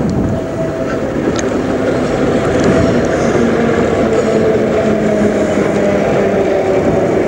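Electric HÉV suburban train passing close by: a rumble of wheels on rails, growing louder over the first couple of seconds, with a motor whine of several tones that slowly falls in pitch.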